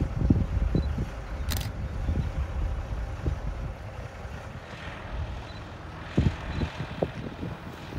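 Wind buffeting the microphone in gusts, with a faint steady hum beneath and one sharp click about a second and a half in.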